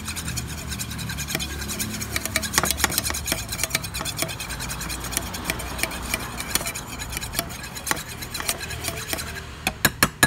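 Flat stirring stick scraping and clicking against the inside of a small metal paint tin, with rapid, uneven strokes, as silver metallic paint is mixed with thinner.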